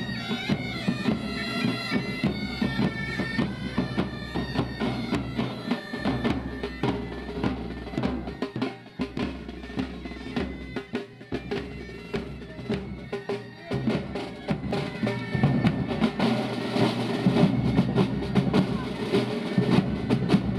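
Marching pipe band playing: bagpipes sounding a tune over their steady drone, with regular drumbeats.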